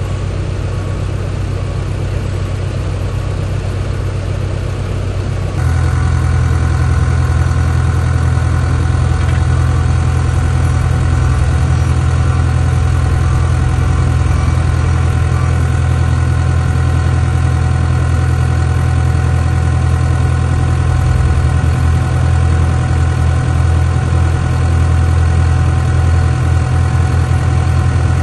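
Heavy-equipment diesel engines idling steadily. About five seconds in, a louder, deeper engine hum takes over, heard from inside the cab of a Caterpillar machine.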